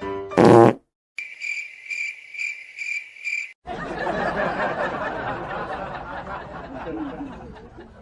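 A short, very loud wet fart sound, then cricket chirping, about two chirps a second for a couple of seconds, then a murmur of chatter and snickering laughter.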